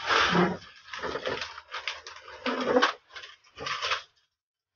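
A large cardboard appliance box being handled and turned over, giving several irregular bursts of cardboard scraping and rubbing.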